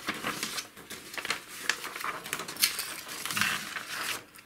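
Sheets of paper rustling and being shuffled by hand, with irregular small clicks and taps of handling.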